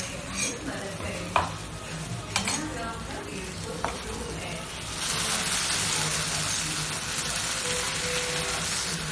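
Tomato paste sizzling in a hot frying pan with fried garlic and onion, stirred with a wooden spatula that clicks against the pan a few times. The sizzle gets louder about five seconds in and stays steady.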